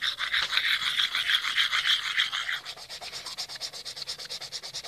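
A freshwater mussel shell scrubbed against wet stone in rapid, even back-and-forth strokes. The rasping grows quieter about two and a half seconds in. The shell is being scoured to strip the dark deposits from its surface.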